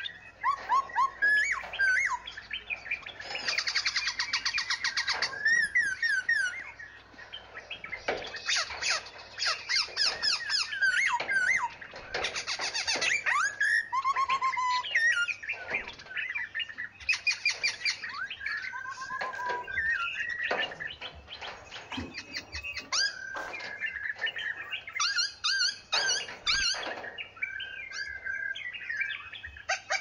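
Several songbirds singing and calling at once: overlapping chirps, short whistled notes that rise and fall, and rapid trills, one over another throughout.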